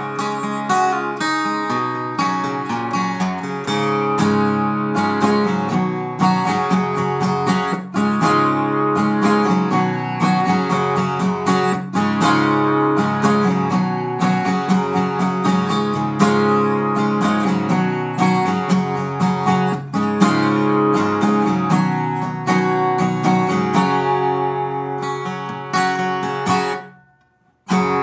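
Background music: strummed acoustic guitar, cutting out for under a second just before the end.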